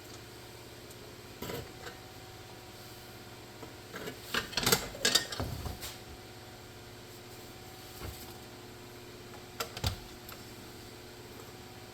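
Clicks, knocks and clatter of small hard parts and tools being handled during dashboard work, loudest in a quick cluster about four to six seconds in, over a low steady hum.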